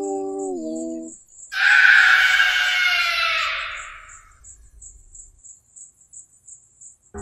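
A high singing voice holds and lowers its note, ending about a second in. Then a loud, shrill, harsh sound starts abruptly and fades away over about three seconds, leaving a faint, regular high ticking.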